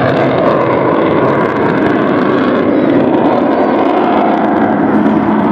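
Avro Vulcan bomber's four Rolls-Royce Olympus turbojet engines, a loud, steady jet noise as the aircraft flies its display overhead.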